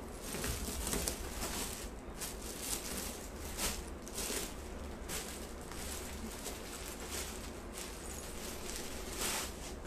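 Cloth rustling and swishing as a dupatta and clothing are handled, shaken out and draped, in a rapid string of short swishes.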